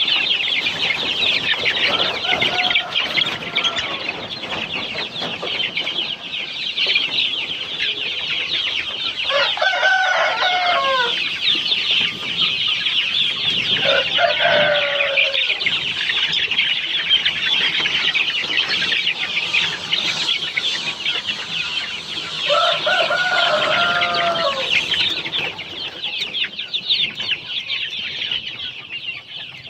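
A flock of young chicks peeping continuously, a dense chatter of rapid high chirps. Three times, a longer and lower chicken call rises above them, and the chatter thins near the end.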